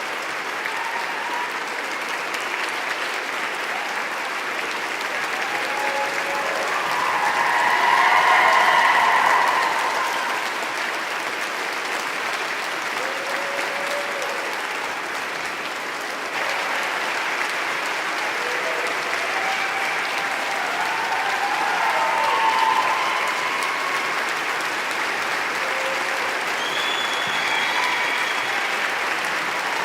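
An audience applauding steadily in a dense, continuous clatter of clapping. It swells briefly about eight seconds in, with scattered voices calling out over it.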